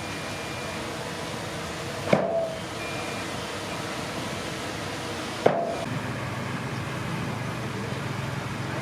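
Komatsu D31P bulldozer working over a steady background of machine noise, with two sharp metallic clanks about three seconds apart, each ringing briefly.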